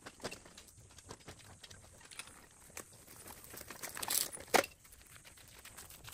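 Metal rattling and clanking of a small boat trailer being wheeled over dry grass, with scattered light knocks and one sharp clank about four and a half seconds in.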